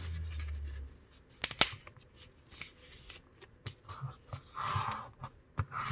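A sheet of paper being folded and creased by hand: rustling and crackling, with two sharp crisp snaps about a second and a half in.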